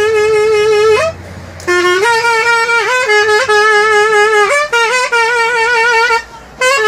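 Zurna playing a folk melody: long held notes with wavering ornaments and quick turns, breaking off briefly about a second in and again near the end.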